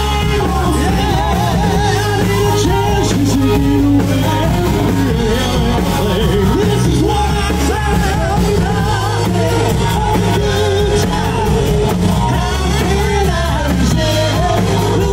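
A live rock band playing: a lead singer belts into a microphone with a wavering held melody, over electric guitar, keyboard and drums.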